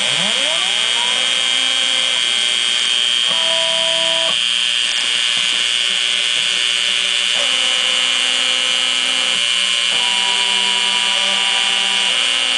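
Dremel rotary tool running at high speed with a steady high whine as its bit engraves oak-like wood, over the singing tones of the CNC machine's stepper motors. The motor tones jump to new pitches every second or two as the axes change direction and speed, with a pitch swoop right at the start.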